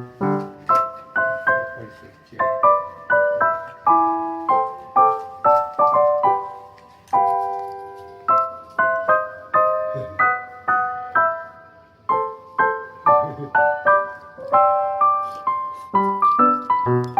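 Solo piano background music: a gentle melody of struck notes that ring and fade, over soft low chords.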